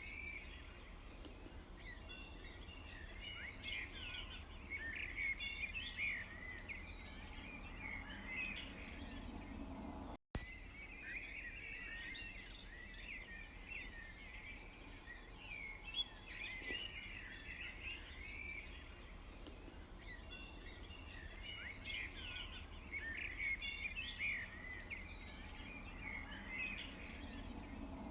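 Many small birds chirping and twittering together in overlapping waves, over a low steady background hum. The sound cuts out for an instant about ten seconds in.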